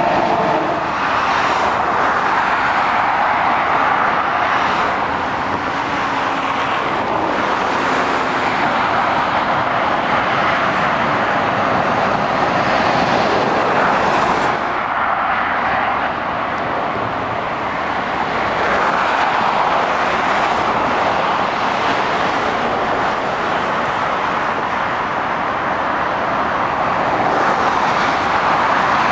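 Motorway traffic passing below: tyre noise and engines of lorries and cars, a continuous rush that swells as each vehicle goes by.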